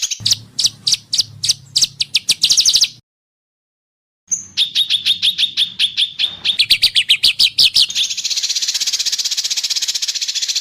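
Recorded songbird song: a fast buzzing trill, then runs of sharp repeated notes. It breaks off completely for about a second, then resumes with a rapid series of ringing notes on one pitch that climb near the end before the buzzing trill comes back.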